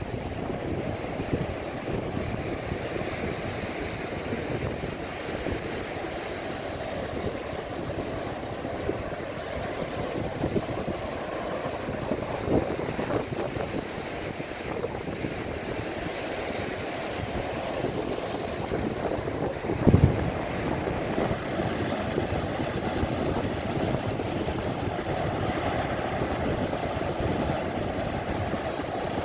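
Sea waves breaking and washing up on a sandy beach, a steady surf wash with wind on the microphone. A single low thump stands out about twenty seconds in.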